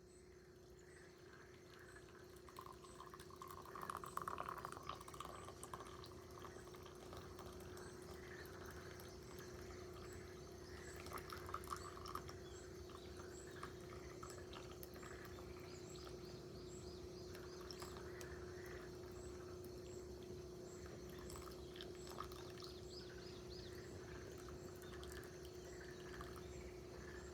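Faint sounds of water being handled for tea over a steady low hum, with a slightly louder stretch about four seconds in and a brief crackling patch around twelve seconds; soft high chirps come and go later on.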